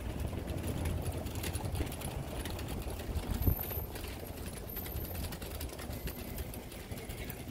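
Night street ambience: a steady low rumble of traffic and engines, with a single sharp thump about three and a half seconds in.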